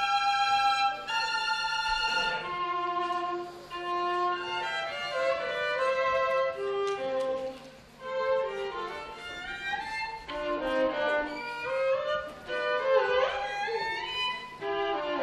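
Solo violin played unaccompanied: two long held notes, then quick runs of notes climbing and falling.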